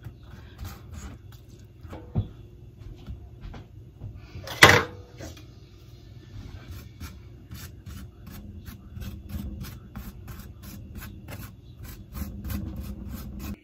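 Melted butter being brushed and spread onto biscuit dough on a metal sheet pan: soft rubbing and dabbing strokes of a pastry brush and knife, turning into an even run of light dabs in the second half. One sharp knock or clink stands out a little under five seconds in.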